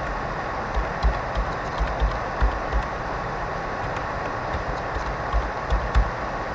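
Computer keyboard keystrokes while a line of code is typed, heard as short dull knocks in two irregular flurries over a steady hiss with a faint high tone.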